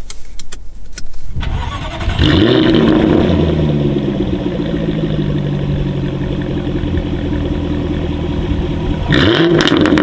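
Jaguar F-Type V8 S's supercharged 5.0-litre V8 starting up through its quad exhausts: it catches about a second and a half in and flares up in revs, then falls back to a high idle that settles lower. It is given a quick rev near the end.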